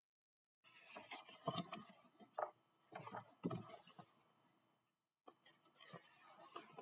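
Paper picture book being handled and its pages turned: irregular rustling and scraping for about four seconds, a brief drop-out, then fainter rustling near the end.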